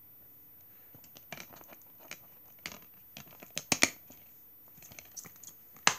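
A DVD disc and its plastic keep case being handled: a run of small clicks and rattles, loudest a little under four seconds in as the disc is pressed back onto the case's centre hub, with another sharp click near the end.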